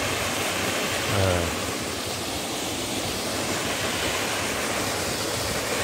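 Steady rush of a mountain waterfall, water pouring down a rock face in an even, unbroken noise.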